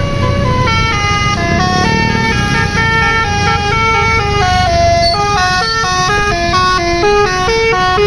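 Multi-tone Basuri 'telolet' musical horn on a tour bus playing a quick stepped melody, several notes sounding together and changing a few times a second, starting about a second in. A low engine and road rumble runs underneath.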